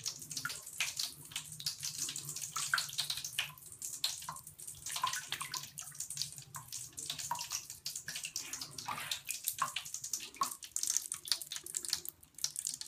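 Popping candy from a Lush Cyanide bath pill popping and crackling in bathwater: many small, irregular clicks over a faint watery fizz.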